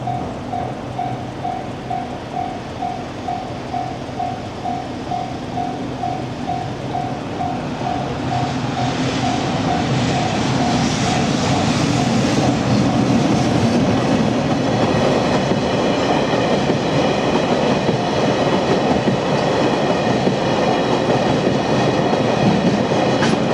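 Japanese level-crossing warning bell ringing at about two strikes a second while a freight train approaches and passes. The train's rumble and clatter build from about eight seconds in and drown out the bell, and a high steady squeal joins the rumble partway through.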